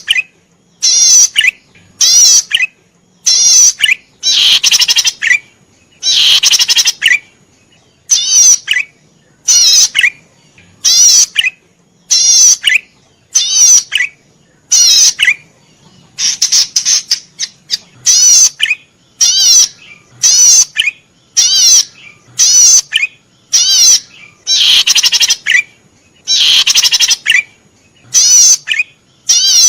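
A cisticola (Indonesian 'cici padi merah') singing at full tilt: a steady series of short, rapid trilled phrases about once a second, with some longer phrases between.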